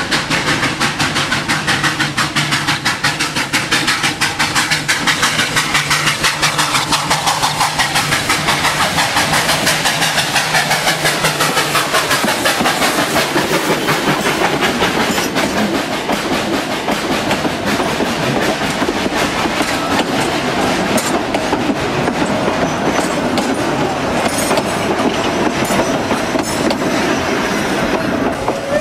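Steam locomotive passing at close range, its exhaust chuffing in rapid, even beats amid the hiss of escaping steam, with the wheels clacking over the rails.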